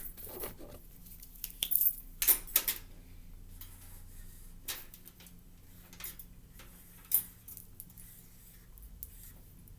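Scattered light clicks and clatter of small hard objects being handled, several in quick succession in the first three seconds, then a few single clicks spaced apart.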